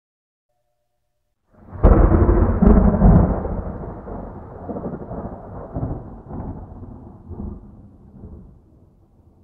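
A thunderclap: a sudden loud crack about two seconds in, two more cracks close after it, then a deep rolling rumble that slowly fades away.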